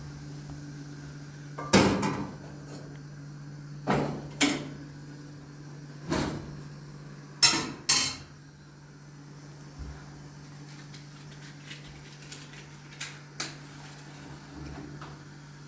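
Kitchen clatter: a series of sharp knocks and clanks of pots, dishes and cupboard doors being handled, the loudest in the first half and lighter ticks later. A steady low hum runs underneath.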